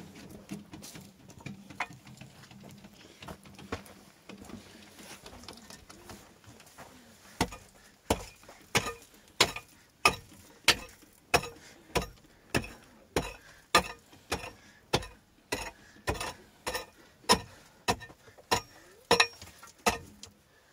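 A hand pick chopping into an earth floor in sharp, regular blows, nearly two a second, starting about seven seconds in; before that only faint scattered knocks and scraping.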